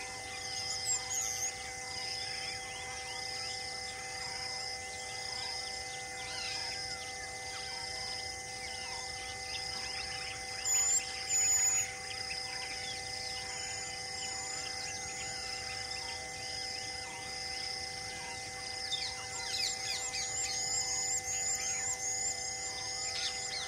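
Outdoor ambience of birds chirping and calling, over a high chirp that repeats about every half-second and a steady drone beneath. About halfway through comes a brief, louder pair of bird calls, and near the end a quick series of falling chirps.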